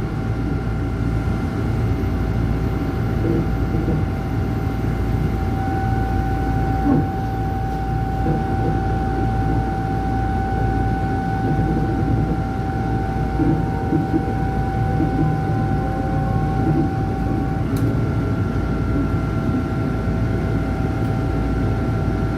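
Tokyu 8500-series electric commuter train running, heard from the cab: a steady rumble of the wheels on the rails with a constant whine, joined by a higher steady tone from about six seconds in until about eighteen seconds in.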